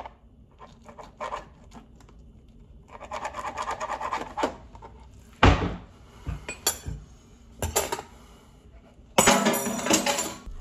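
Kitchen knife cutting fast through raw flank steak onto a plastic cutting board. The quick knife strikes on the board come in runs, with a dense stretch a few seconds in, single louder knocks midway and a loud burst of strikes near the end.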